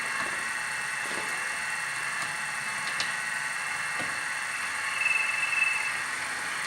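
A steady machine whir with a thin high whine that swells for about a second around five seconds in.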